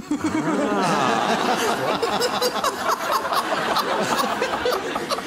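Studio audience laughing together, with the host's laughter among it, continuing without a break.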